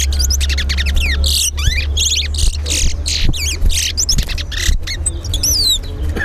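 Caged towa-towa finches singing fast runs of high, swooping whistled notes in close succession, each run a song counted in a whistling contest. A steady low hum runs underneath.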